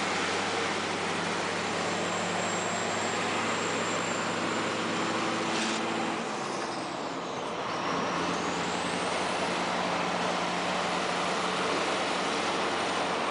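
Scania R560 V8 truck engine with a straight-pipe exhaust, heard from inside the cab while driving: a steady engine drone over road noise. About six seconds in it eases off for a couple of seconds, a high whistle falling and then rising again, before the engine pulls steadily once more.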